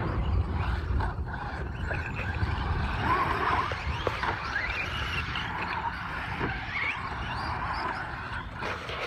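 Radio-controlled short-course trucks racing over a dirt track, their motors whining up and down in pitch as they throttle on and off, with a few short knocks as they land from jumps.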